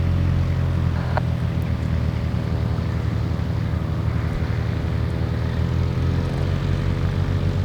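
Light aircraft's piston engine and propeller running steadily: a low drone made of several even tones.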